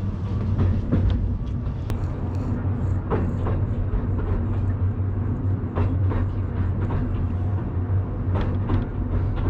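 Ikawa Line passenger train running, heard from inside the carriage: a steady low rumble with a few sharp knocks a couple of seconds apart.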